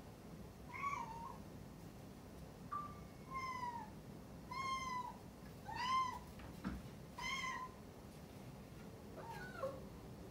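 A one-year-old cat meowing over and over at a closed pet gate, calling for its owner on the other side: about seven short meows, each rising and then falling in pitch, a second or so apart. A soft knock comes partway through.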